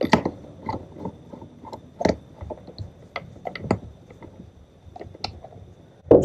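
Irregular light metal clicks and knocks as a socket is fitted and worked by hand on the flywheel pulley nut at the top of a two-stroke outboard powerhead's crankshaft. A loud burst of noise starts right at the end.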